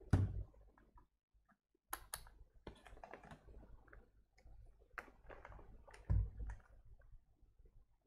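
Hands handling a multimeter, test leads and wires on a rubber bench mat: scattered light clicks and taps, with a dull thump just at the start and another about six seconds in.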